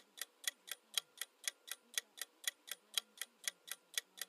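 Countdown-timer sound effect ticking quickly and evenly, about four ticks a second, in a tick-tock pattern.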